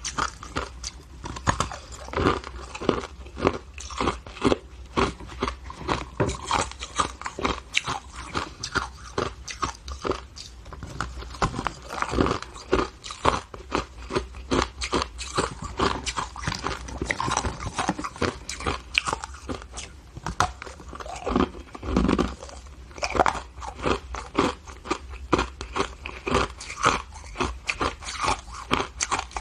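A person biting and chewing hard shaved ice, in an unbroken run of crisp, irregular crunches.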